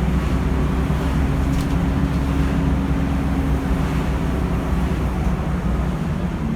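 Volvo B10BLE bus's six-cylinder diesel running steadily under way: a low drone with a level hum over it.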